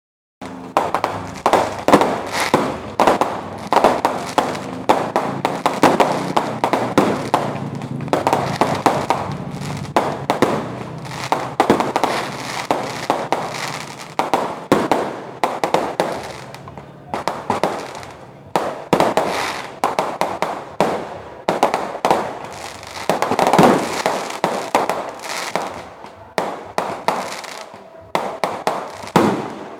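Fireworks going off in a continuous barrage: many overlapping bangs, several a second, without a break.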